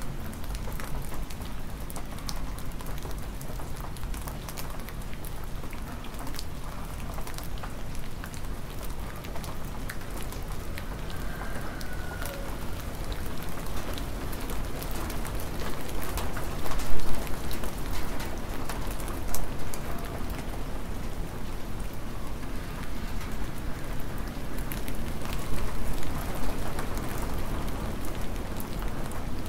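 Cold, hard rain falling steadily, a dense hiss full of sharp individual drop hits. A few louder hits come about 17 and 19 seconds in.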